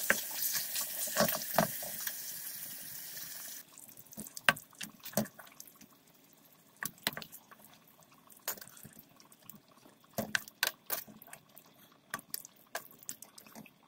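Wooden spatula stirring thick meat curry in a steel pot, scraping and knocking against the pot in scattered clicks. For the first few seconds a loud steady hiss is heard over it, which cuts off suddenly about four seconds in.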